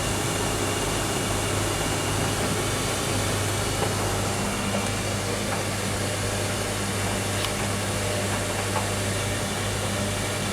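Bosch WTN85280 tumble dryer running steadily with a load of towels, its drum and fan giving a constant low hum under a rushing noise; a second, higher hum joins about four seconds in.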